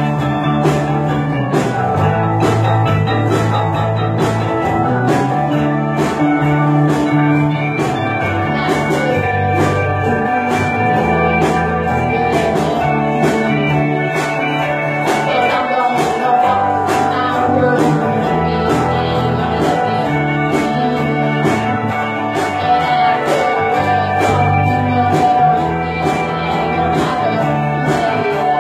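Live acoustic band playing a song: strummed acoustic guitar and a mandolin over a steady beat.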